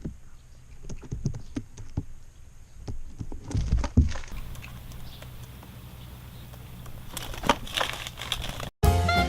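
Irregular taps and knocks over a faint low hum. Near the end the sound cuts out briefly and drum-led music starts.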